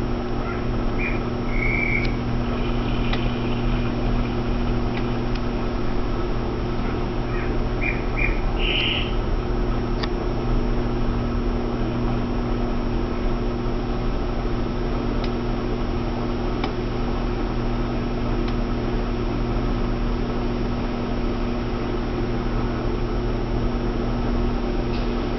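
Atlas clothes washer in its spin cycle after the second rinse: the motor and drum running with a steady, even hum. A few short high chirps sound within the first ten seconds.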